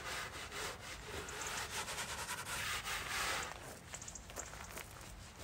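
Frost being scraped and rubbed off a car's rear window glass in a run of quick strokes, which ease off after about three and a half seconds.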